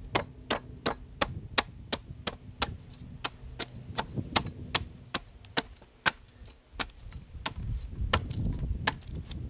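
Side axe chopping down a wooden trug handle held against a chopping block: quick, light, evenly paced strikes, about three a second, taking thin shavings off the handle.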